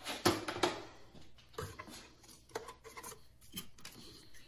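Scattered light clicks and knocks of hand tools being handled: a quick cluster in the first second, then single clicks about once a second.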